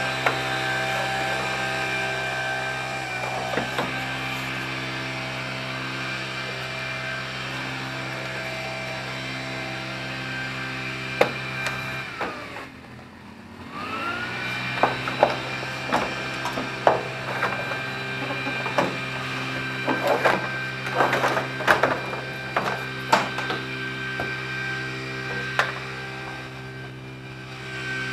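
Steady electrical hum with several even tones, which dies away and glides back up about halfway through. After it comes a loose run of sharp clicks and knocks as the plastic cowl panel below the windshield of a Ford Freestar is pried and worked loose.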